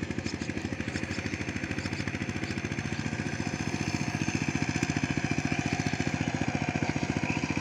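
Single-cylinder diesel engine of a Saifing 12-horsepower two-wheel power tiller, chugging with a fast, even beat as it pulls through a wet paddy field under load. It grows a little louder over the first few seconds as the tiller comes nearer.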